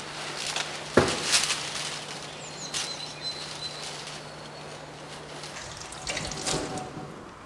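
A sharp knock about a second in. From about six seconds, a kitchen tap runs and splashes into a stainless-steel sink as vegetables are rinsed under it.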